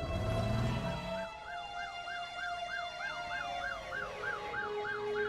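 A siren sound effect in a fast yelp, rising and falling about four times a second from about a second in, over steady held electronic tones. A short low rumble comes at the very start.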